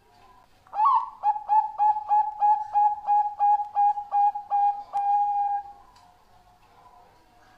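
A Bangkok-bred zebra dove (perkutut) sings one full song: an opening note, a fast run of about a dozen short coos at roughly four a second, and a longer held coo to finish.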